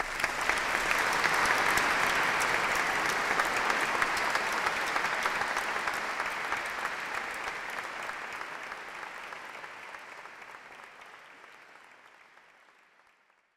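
Audience applause, dense and crackling, starting abruptly and then fading out steadily to silence.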